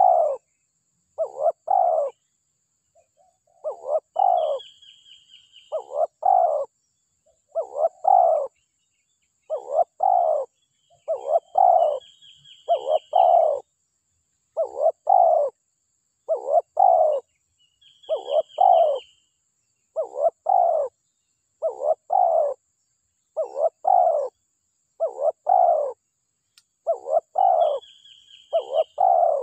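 Spotted dove (tekukur) cooing steadily: repeated phrases of two or three low notes, about one phrase a second, with a short high trill from another bird every few seconds.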